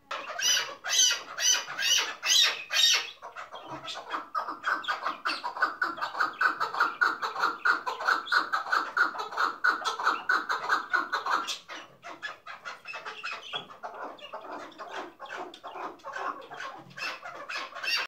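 Chukar partridge calling. It gives a few loud, harsh calls, then a long, fast run of short clucking notes that turns quieter about twelve seconds in.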